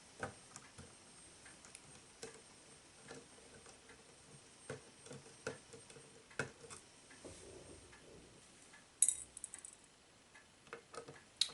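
Scattered small clicks and taps of a screwdriver and tiny screws being worked out of a motherboard, with a sharper metallic click about nine seconds in.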